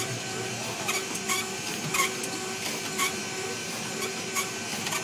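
Mechanical bull's drive machinery running with a steady whir, broken by sharp clicks at uneven intervals, about once a second, as it bucks and spins.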